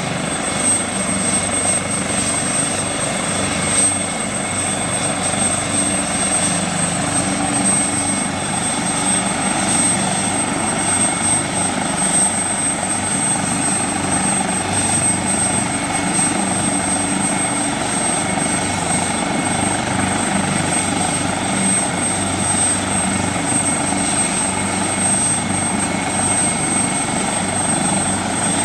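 Helicopter running steadily: a constant high turbine whine over the rotor and engine noise, holding the same pitch and loudness throughout.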